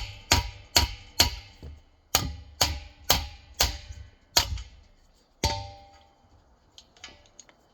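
Hammer striking metal on a compressor motor, about two blows a second with a ringing clang after each: about ten blows in two runs, then one harder blow that rings longer. It is being used to knock off a part that normally needs a special puller.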